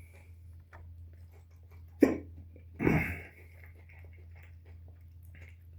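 A man hiccuping: one sharp hiccup about two seconds in, followed just under a second later by a longer, breathy sound. The hiccups are brought on by eating very spicy food.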